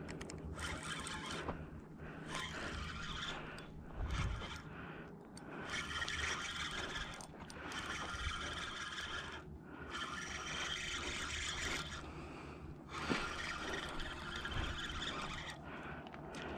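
Fishing reel being cranked to reel in line, a scraping whir that comes in repeated bursts of a second or two with short pauses between them.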